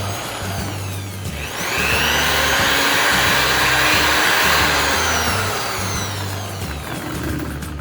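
Motor of a homemade drum sander running, its whirring noise swelling about a second and a half in and easing off again near the end, over background music with a steady bass line.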